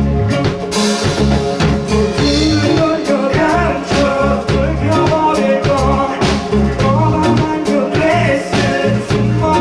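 Live indie rock band playing a song, with drums, bass and electric guitar over a steady beat and a voice singing.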